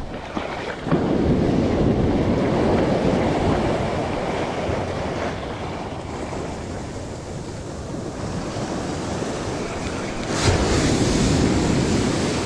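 Ocean surf breaking and washing up the beach at the water's edge, a loud rushing with two surges, one about a second in and another near the end, with wind buffeting the microphone.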